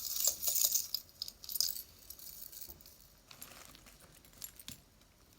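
Loose jewelry being handled, beads and small metal pieces clicking and jingling against each other. The clicking is busiest in the first two seconds, then thins to a few scattered clicks.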